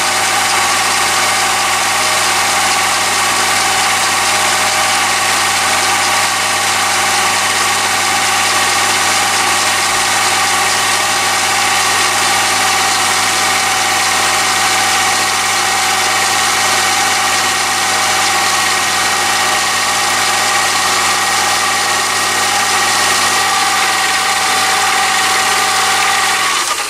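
Chinese mini lathe running under power feed while a carbide insert tool takes a turning cut along a thin mild steel spindle: a steady motor and gear whine that cuts off abruptly at the end as the lathe is stopped.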